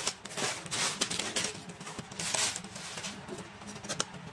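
Clear plastic packaging crinkling and rustling as it is pulled apart by hand, in several loud bursts over the first couple of seconds, then quieter handling with a few light clicks.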